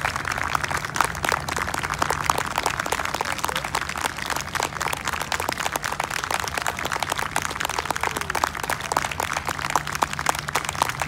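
Audience applauding: a dense, steady patter of many hands clapping, over a low steady hum.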